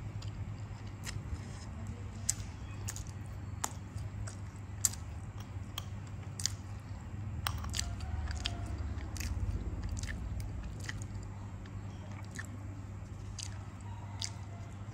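Close-up eating sounds: biting and chewing crusty bread with steamed pork and salted egg yolk, with irregular sharp clicks and crunches, over a low steady hum.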